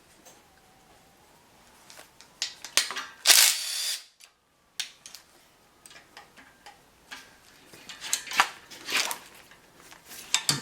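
Scattered clicks, knocks and clinks of hands and tools working on the fittings and wiring of a GM LS 6.0 V8 engine during teardown, with a brief loud scraping rush about three seconds in. The sound cuts out for a moment a little after four seconds.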